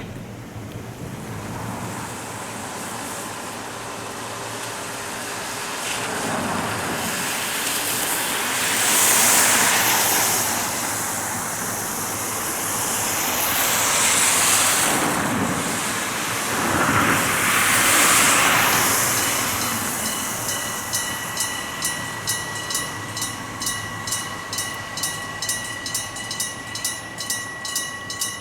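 An electric train passes over a level crossing; its wheel and running noise swells and fades in three waves. About 21 s in, Japanese electric-bell level-crossing warning bells start up, several ringing together in a fast, even ding-ding of about two to three strikes a second.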